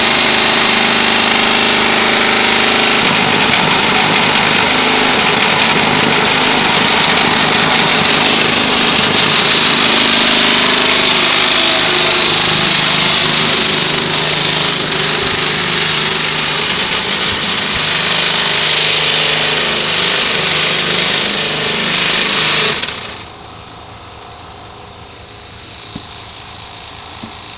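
Loud, steady machine noise from the motor of a precast concrete vibrating table shaking a mould of wet concrete. About 23 seconds in it drops abruptly to a much quieter steady hum.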